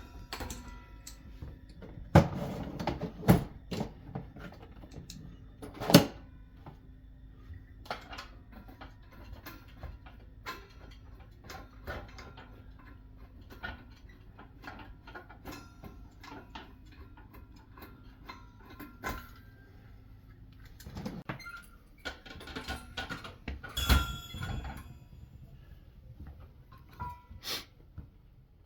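Scattered knocks, clicks and clatter from handling a refrigerator's doors and parts during a repair, over a low steady hum that stops about three-quarters of the way through.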